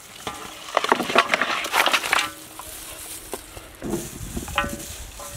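Raw chicken pieces tipped from a steel bowl into a large steel pan: a burst of wet slapping and clattering about a second in. Later, gloved hands squelch as they work the meat in the pan.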